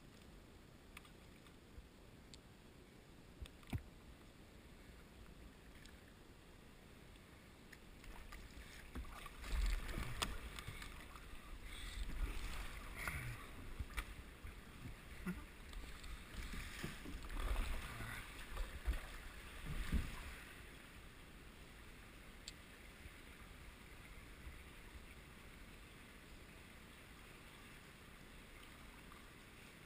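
Kayak paddle strokes in a concrete culvert: a run of water splashes with low thumps and sharp knocks from about 8 to 21 seconds in, faint and sparse before and after.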